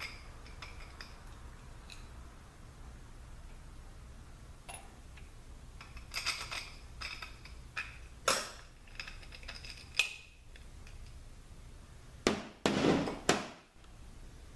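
Steel automatic-transmission internals clinking and knocking against each other and the bench as parts are lifted out of the case and set down, in a handful of separate knocks, with the loudest cluster and a short rattle near the end.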